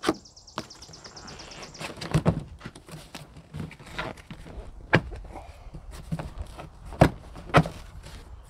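Stapled cardboard box being pried open by hand, its flaps pulled and torn loose with an irregular series of sharp snaps and knocks; the loudest come right at the start and about five and seven seconds in.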